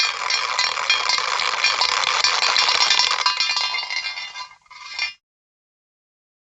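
A dense run of clinking and jingling, like small hard metal or glass objects rattling together with short ringing tones. It fades out about four and a half seconds in, and a short burst follows before it cuts to silence.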